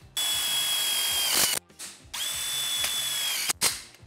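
Cordless drill-driver whining in two steady runs of about a second and a half each, dipping slightly in pitch as each stops. It is driving 16 mm washer-head self-drilling sheet-metal screws into square steel tubing and its joint fittings.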